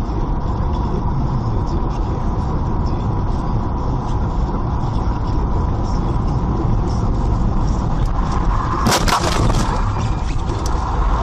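Car on the road with a steady low rumble of engine and road noise, then a sudden loud crash lasting about a second, about nine seconds in: a collision impact.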